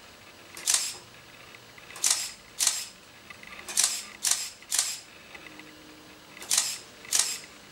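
DSLR camera shutter firing eight times at uneven intervals, each a short sharp click. It is one photo per trigger as the spinning photo tray sets off the camera's wired infrared remote, taking the object from one angle after another.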